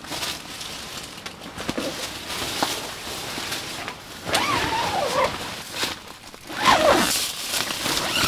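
Tent fabric rustling and a zipper being drawn in a few long, uneven pulls in the second half, as a tent cover is lowered and closed.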